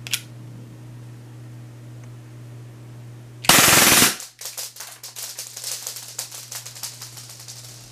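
Airsoft Glock 18C pistol fired in one short full-auto burst of about half a second, about three and a half seconds in, followed by a few seconds of faint rapid ticking. A single click sounds at the very start.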